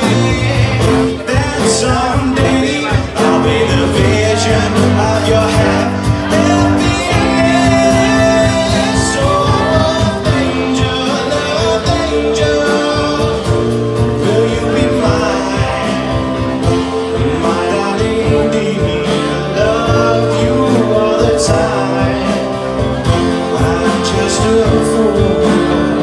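Live band performing a slow doo-wop ballad: a male singer on a microphone over electric guitar and bass guitar.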